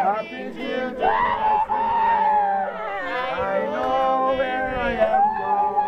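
Congregation singing a gospel chorus together, voices holding long notes.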